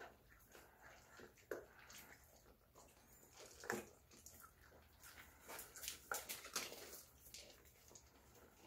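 A litter of puppies eating together from a metal bowl: faint, irregular smacking and chewing with scattered short clicks, a little busier about four seconds in and again around six seconds.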